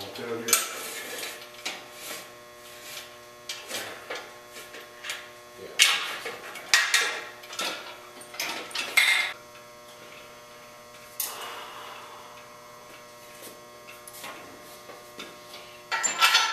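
Steel engine-hoist parts clanking and knocking as they are handled and fitted together, in scattered bursts with a denser run of clatter near the end, over a steady electrical hum.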